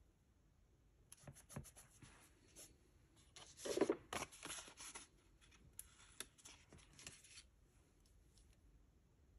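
Soft rustling and crinkling of a paper sticker sheet being handled, with small ticks and taps of metal tweezers as planner stickers are peeled and placed; the loudest rustle comes about four seconds in.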